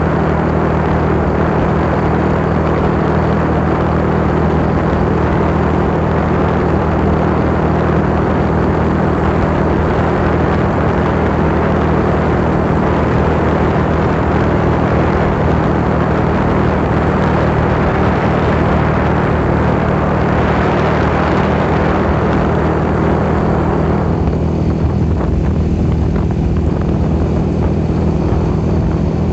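Motorcycle engine running steadily at road speed, a low hum under heavy rushing wind and road noise on the microphone. The rushing noise eases somewhat about 24 seconds in.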